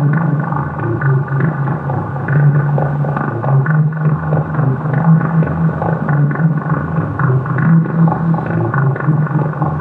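A loud, steady low drone with a rough, restless texture above it, unbroken throughout.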